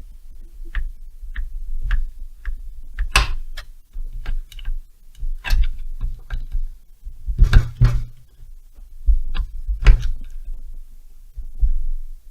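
Irregular light clicks and knocks of hand tools and metal parts being handled while taking the magneto off a Stihl 070 chainsaw, with a few louder knocks in clusters.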